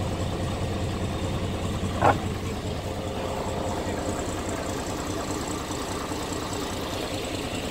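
Ford 9N tractor's four-cylinder flathead engine idling steadily. A brief sharp sound stands out about two seconds in.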